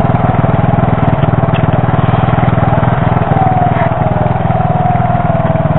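An engine running steadily at idle close by, an even rapid pulsing, with a faint whine falling slowly in pitch through the second half.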